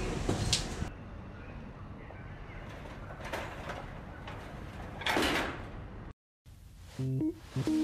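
Inside an elevator: a steady low hum with a click just after the start, then two short swishes of the sliding elevator doors, about three and five seconds in. After a brief cut to silence, keyboard music with organ- or piano-like notes begins near the end.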